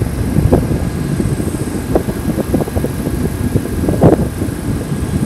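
Gusty wind buffeting the microphone in irregular low rumbles, over a faint steady high-pitched tone.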